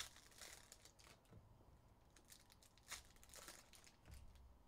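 Faint crinkling and tearing of foil Upper Deck hockey card pack wrappers being opened by hand: a few short crackles, the clearest right at the start and about three seconds in.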